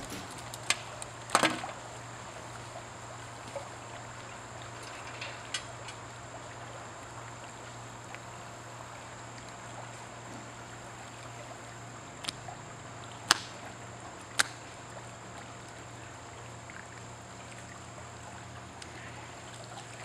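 Steady outdoor poolside ambience: a low hum with a faint trickle of water, typical of a swimming pool's circulation. A few short sharp taps stand out, two about a second in and two more around 13 to 14 seconds in.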